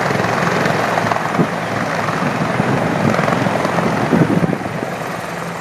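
Helicopter running close by during a landing: a loud, steady rotor and engine noise with uneven gusty surges, easing a little near the end.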